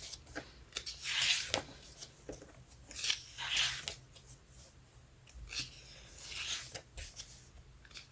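Pages of a photobook being turned by hand: a few short papery swishes spaced a second or two apart.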